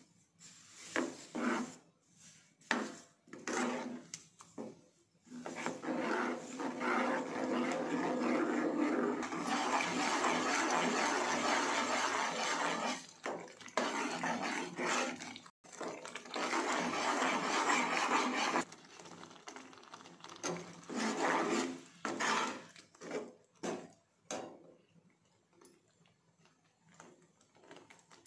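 Steel spoon stirring and scraping a thick paneer mixture against a non-stick pan: scattered strokes at first, then continuous scraping for most of the middle, thinning back to occasional strokes near the end.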